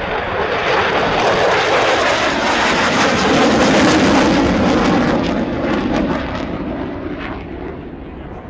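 Jet aircraft passing low overhead: the engine roar swells to a peak about four seconds in and then fades away.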